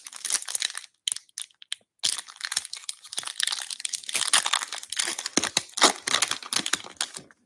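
A foil trading-card pack being torn open and crinkled in the hands. A short rip comes in the first second, then a brief pause, then steady crinkling and tearing of the foil wrapper for the rest.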